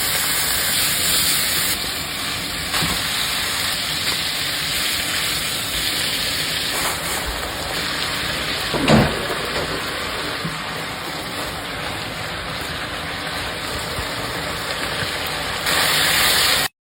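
Food sizzling steadily in a hot frying pan, with one knock a little past halfway through.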